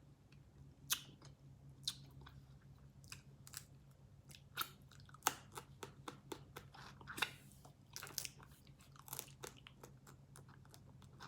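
Close-up mouth sounds of someone eating a seafood boil: chewing, with many short sharp clicks and smacks scattered irregularly throughout.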